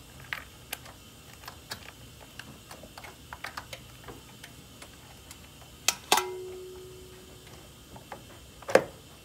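Light plastic clicks and taps as a new plastic coolant reservoir is handled and slid into its mounting notch. About six seconds in comes a sharp double knock followed by a brief metallic ring that dies away, and there is another sharp knock near the end.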